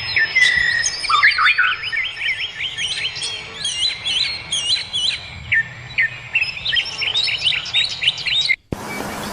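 Many wild birds chirping and twittering in quick, overlapping calls. Near the end the sound drops out for a moment and gives way to a steady hiss with a low hum.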